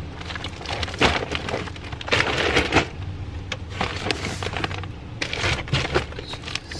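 Crackling rustle and scattered knocks of shopping bags being handled.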